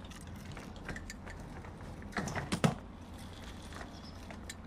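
A short clatter of several knocks and clicks a little over two seconds in, over a low steady hum, with a few lighter clicks scattered around it.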